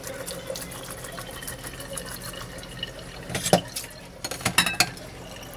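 Tap water running onto udon noodles in a stainless steel colander in the sink, rinsing the clumped noodles loose, with a few sharp knocks of the colander a little past halfway.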